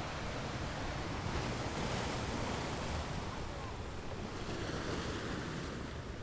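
Sea surf washing onto the shore in swells, with wind buffeting the microphone.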